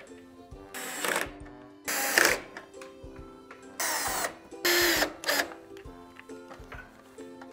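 Black+Decker cordless screwdriver running in five short bursts of about half a second each, driving in the mounting screws of a replacement TV speaker.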